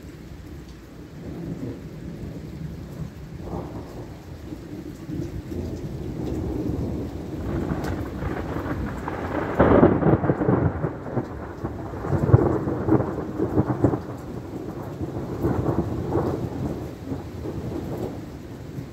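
Thunder rolling, a low rumble that builds about halfway through to its loudest peals, then goes on in waves, with rain falling throughout.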